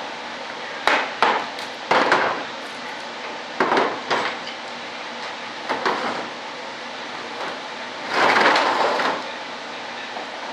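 Sharp knocks and cracks as the rudder of a model jet is pried and worked apart with a hand tool, coming in irregular clusters. Near the end comes one longer, rougher noise lasting about a second.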